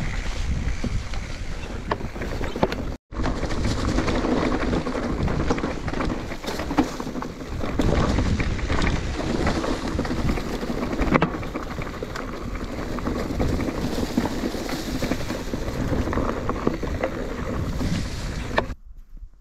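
Mountain bike riding over a rough trail: wind buffeting the microphone over the tyre noise and a steady clatter of small knocks and rattles from the bike. The sound cuts out for a moment about three seconds in and drops away sharply near the end.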